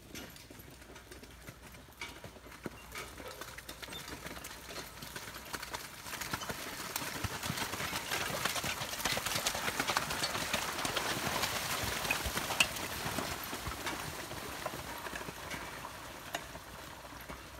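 Team of two draft horses walking through deep mud pulling a forecart with a grading blade: hooves clopping and squelching, with knocks and rattles from the cart, growing louder as they pass close about eight seconds in and fading as they move away.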